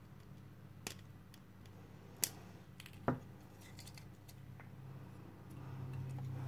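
A few light clicks and taps from fingers handling a small circuit board, over a low steady hum that gets somewhat louder near the end.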